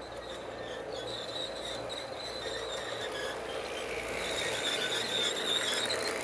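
G scale model train running along its track: a steady running rumble with a high squeal over it, slowly getting louder.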